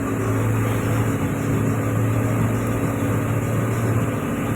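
Tugboat's diesel engine running steadily, a constant low drone.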